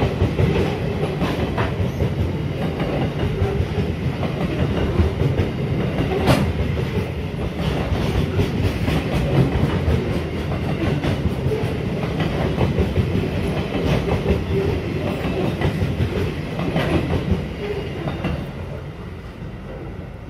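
Freight train hopper wagons rolling past, wheels clicking and clattering over the rail joints in a steady rumble. The sound fades near the end as the last wagon passes and draws away.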